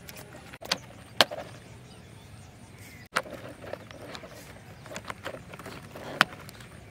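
Irregular sharp clicks and taps of hard plastic, about seven in all, as a toy stunt motorcycle is handled, the loudest about a second in, over a low steady background hiss.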